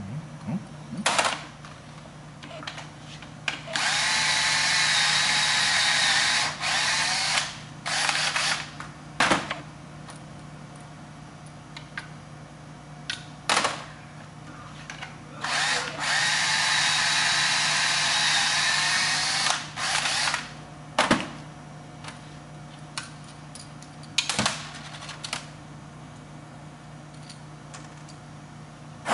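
DeWalt cordless drill running in a series of short trigger blips and two longer runs of about three seconds each, its motor whine holding a steady pitch.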